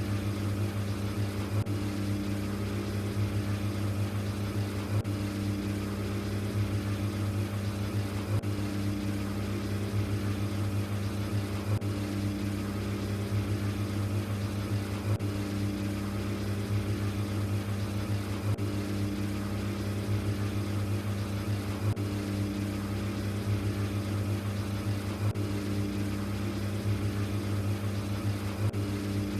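LG ThinQ washing machine running its Quick 15 cycle: a steady low motor hum from the drum, with a fainter tone that swells and fades every couple of seconds.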